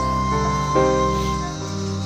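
Instrumental background music with long held notes that shift to new notes twice.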